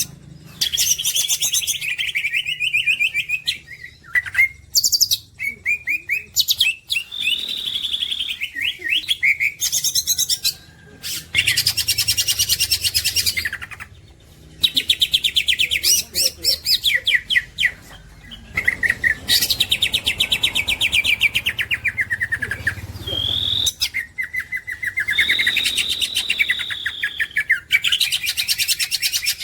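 Cucak ijo (green leafbird) singing a long, varied song. It goes in phrases of fast rattling trills, buzzy chatters, falling slurs and held clear whistles, broken by short pauses.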